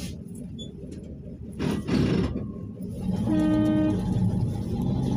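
Inside a PAZ-32054 bus: the engine's low rumble, a short hiss about two seconds in, then a single short horn toot. Near the end, the engine note starts rising as the bus pulls away.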